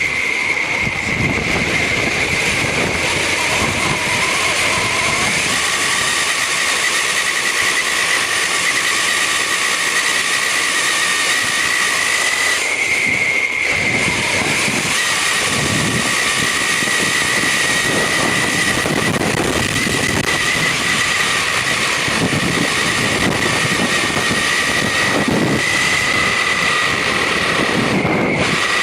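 Quanum Vandal RC car driving, heard on board: a steady high whine from its drivetrain over a rough, continuous hiss of tyres on the ground. The whine holds its pitch with small shifts.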